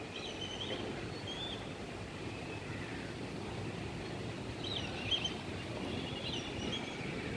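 Breeze rustling with a steady low rush, while small birds chirp and twitter in short high calls, a few near the start and a livelier cluster about five seconds in.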